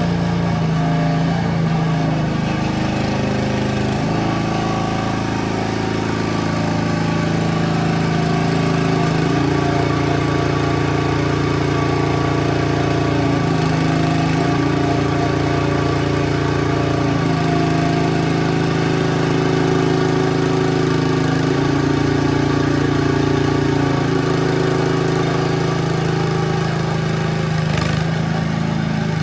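Engine of a 1-ton mini excavator running steadily while digging, its note shifting up and down every few seconds as the machine is worked.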